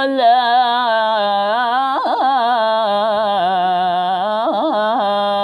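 Male voice reciting the Qur'an in melodic tajwid style, drawing one phrase out into long held notes with wavering ornaments and a few quick melodic turns.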